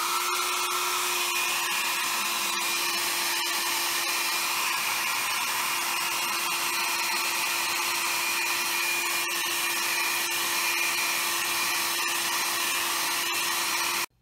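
Handheld 1875-watt ionic travel hair dryer blowing steadily, a rush of air over an even motor hum whose pitch steps up slightly at the start. It cuts off suddenly near the end.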